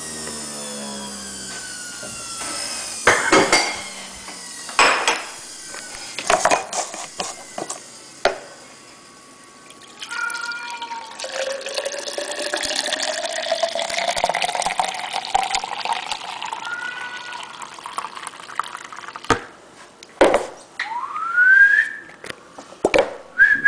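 Fresh vegetable juice pouring from a juicer's spout into a glass mug, a running stream with a tone that rises slowly as the mug fills. It is preceded by a few sharp knocks, and a short rising whistle comes near the end.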